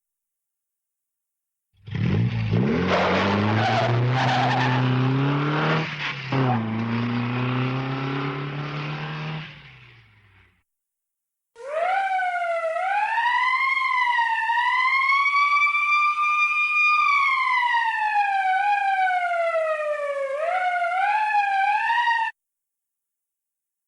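Two cartoon sound effects. The first is an engine-like rumble that rises in pitch, runs loudly with a dip partway through, then fades out. After a short gap comes a clear whistle-like electronic tone that wavers and glides up and down in pitch for about ten seconds, then cuts off.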